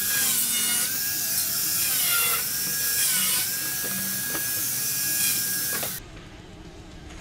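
Handheld angle grinder running on steel, its whine dropping in pitch as it bites and then holding steady, over a loud hiss; it cuts off abruptly about six seconds in.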